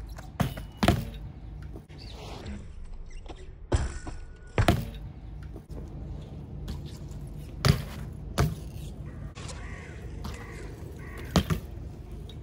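BMX bike knocking and landing on concrete: about seven sharp knocks and slaps of tyres and metal on the concrete, unevenly spaced, the loudest about two-thirds of the way through.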